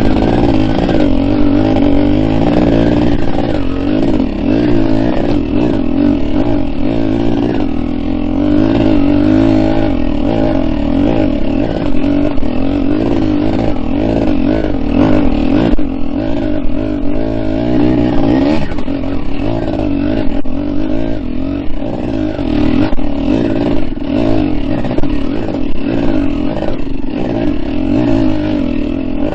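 Open-class two-stroke dirt bike engine running under load on a trail ride, its pitch wavering up and down as the throttle opens and closes.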